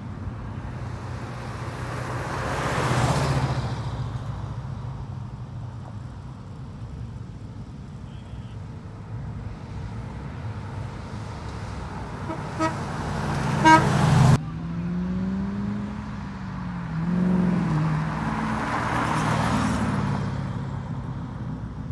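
Cars driving past one at a time, each pass rising and falling in loudness. About two-thirds through, a horn gives two short toots, then the sound cuts abruptly to a car's engine running with its pitch wavering up and down as it pulls past.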